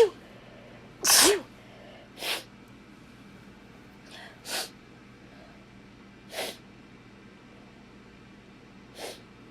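A person sneezing hard with fall allergies. One sneeze ends right at the start and a second sneeze, with voice in it, follows about a second in, making a double. Then come four short, much quieter breaths, a couple of seconds apart.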